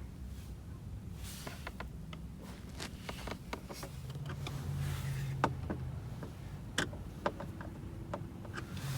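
Scattered light plastic clicks and snaps from handling the car's dashboard instrument cluster and bulb socket, with a low steady hum rising about four seconds in.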